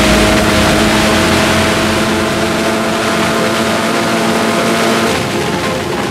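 Sports 2000 race car's Ford Pinto 2.0-litre four-cylinder engine heard onboard at full throttle, its note climbing slowly as it pulls from about 6,200 to 6,800 rpm, over wind and road noise. About five seconds in the driver lifts off and brakes, and the steady engine note drops away.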